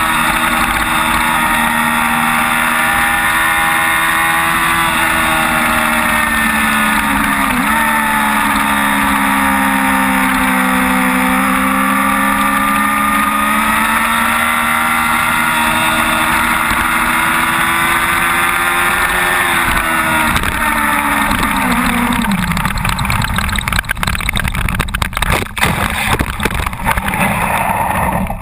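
Sport motorcycle engine at high revs under heavy wind rush as it laps a track, the pitch dipping briefly a couple of times and then falling as it slows. About 23 seconds in the engine note fades and irregular scraping and knocks take over as the bike goes down and slides, stopping abruptly at the end.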